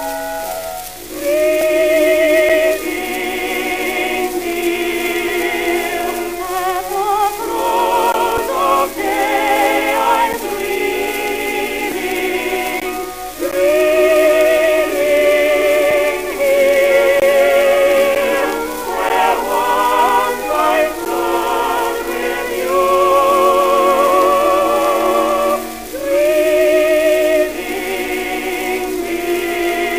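1918 Victor 78 rpm acoustic recording: singing with a wide vibrato over instrumental accompaniment, the sound cut off above about 4 kHz.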